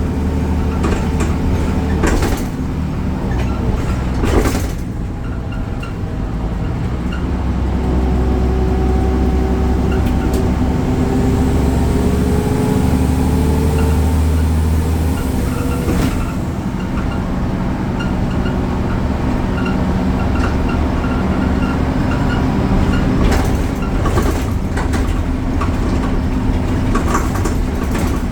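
Bus diesel engine, the Deutz of a BredaMenarini Avancity Plus city bus with ZF automatic gearbox, running under way and heard from inside the bus. A whine climbs steadily in pitch for several seconds as the bus gathers speed, then drops off suddenly about two-thirds of the way through, as at a gear change. A few knocks and rattles come from the body.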